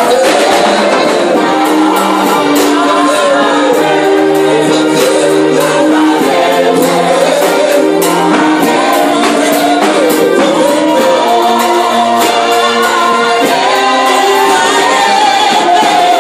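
Live gospel worship song: singers over an electronic keyboard's held chords, with steady drum and cymbal strokes.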